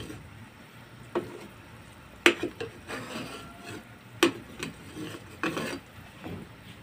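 A metal spoon scraping and knocking against a metal pot as foam is skimmed off boiling beef broth, with about four sharp clinks, the loudest a little over two seconds in.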